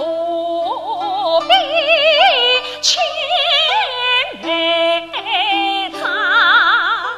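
Yue opera actress singing an aria line in a high female voice, with wide vibrato on long held notes, over steady instrumental accompaniment. The line climbs to a high held note near the end.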